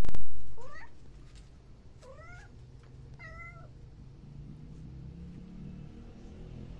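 Kitten meowing three times, short high calls, the first two rising in pitch. A loud knock sounds at the very start.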